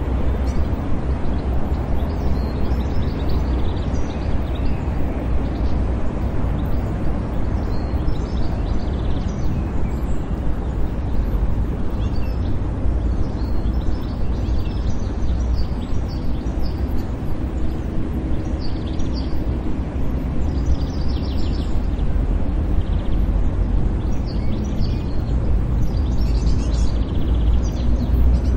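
City park ambience: a steady low rumble of distant traffic, with small birds chirping now and then.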